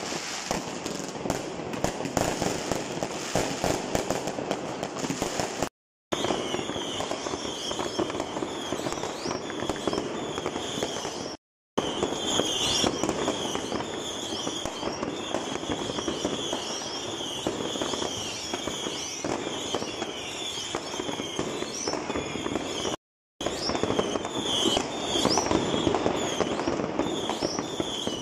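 Many fireworks and firecrackers going off at once: a dense, continuous crackle of bangs and pops. From about six seconds in, short high whistles repeat among the bangs.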